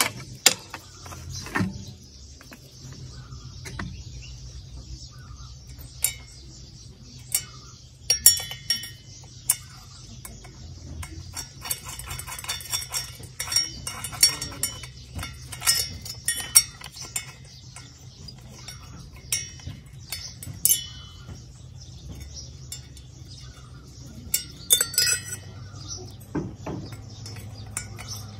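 Small metal parts and a hand tool clinking and ticking against a TL43 two-stroke brush-cutter engine as it is put together by hand: irregular light metallic taps, some in quick clusters, over a steady low hum.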